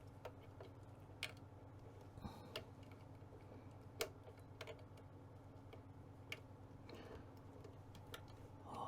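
Sparse, faint clicks and taps of small plastic wiring connectors and ribbon cables being handled and pushed into their sockets inside a radio transceiver, over a faint steady low hum.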